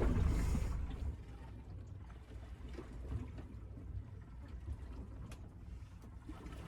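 Faint low rumble of wind and water around a small boat at sea, louder for the first second, with a few light ticks.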